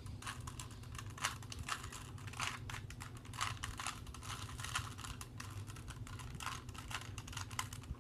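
Plastic Rubik's Cube being turned quickly by hand, its layers clicking and clacking in rapid, irregular runs during the last moves of a solve.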